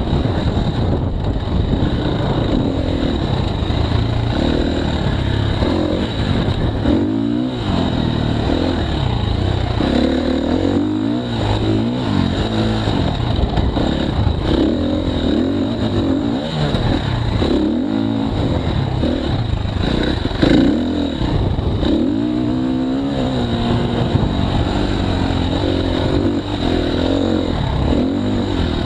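KTM 350 XC-F dirt bike's single-cylinder four-stroke engine, heard close up, revving up and dropping back over and over as the rider works the throttle and gears on a hilly trail. A brief loud knock comes about two-thirds of the way in.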